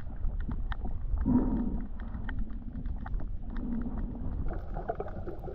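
Muffled underwater sound from a camera held below the surface: a steady low water rumble with scattered faint clicks and crackles, and two soft swells a couple of seconds apart.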